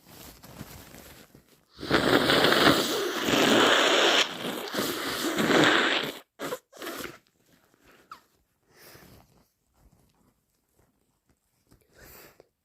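A person with a congested nose blowing it hard: one long, rough blow of about four seconds, followed by two short blows.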